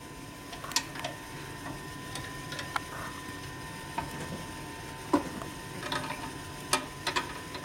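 Hand tools clicking and tapping on metal as a generator is fitted and tightened on a Harley-Davidson WL motorcycle, with scattered sharp clicks about a second apart.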